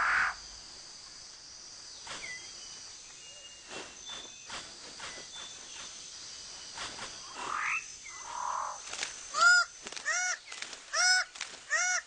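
Rainforest ambience with thin insect tones and scattered bird calls, including a rising whistle. From about nine seconds in, a bird repeats a loud call roughly every three quarters of a second.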